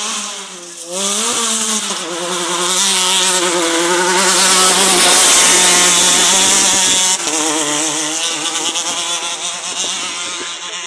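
Off-road race vehicle's engine running hard as it passes on a dirt course. The pitch wavers over the bumps and the sound builds to its loudest mid-way, then drops off suddenly about seven seconds in.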